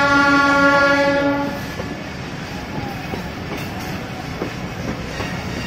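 Train horn sounding one steady held note, cutting off about a second and a half in. The train then rolls on with a steady rumble of its wheels running along the rails.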